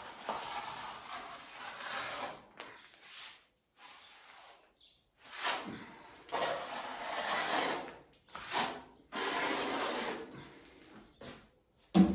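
A mason's trowel scraping over cement mortar on a wall, in a series of strokes each about one to two seconds long with short pauses between. A sharp knock comes near the end.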